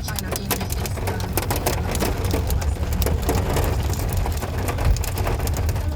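Hailstones rapidly pattering on a car's metal body and glass, a dense irregular clatter of ticks, over the low rumble of the car driving.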